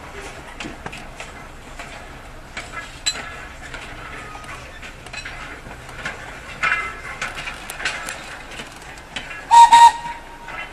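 Thomas the Tank Engine replica locomotive moving along the track with scattered clicks and knocks, then a short loud whistle blown about nine and a half seconds in, pulsing two or three times before a brief held note.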